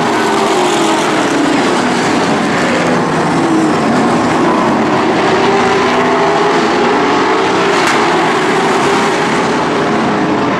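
Late model stock cars' V8 engines racing in a pack, a loud steady drone with several engine pitches rising and falling as the cars go by.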